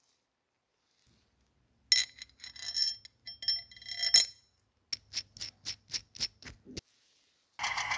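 Thin steel wire clinking and scraping against the metal parts of a small homemade tractor as the seeder's drawbar is hooked on, with short ringing metallic tones. Then a quick run of about eight light clicks, and near the end a small geared electric motor starts whirring steadily.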